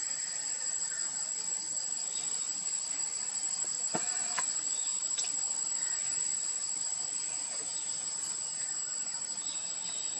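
Steady, high-pitched chorus of insects, with a couple of sharp clicks about four seconds in.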